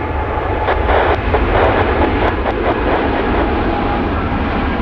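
Twin jet engines of a Boeing 787-10 Dreamliner on its takeoff run: a loud, steady rumble with a broad rushing hiss.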